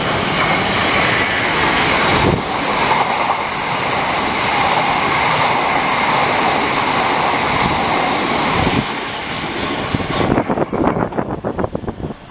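Train running past on the rails: a steady loud rush of wheel and rail noise for about ten seconds, then a quick run of wheel clicks over the rail joints near the end as it goes by and fades.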